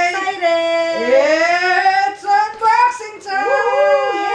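A toddler singing wordlessly in long, high held notes that glide up and down, with short breaks between them.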